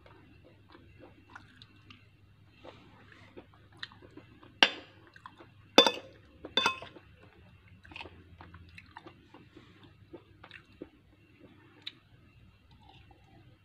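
Close-up chewing of cooked vegetables, with soft wet mouth clicks throughout. About halfway through come three sharp, ringing clinks of a metal spoon against a glass bowl.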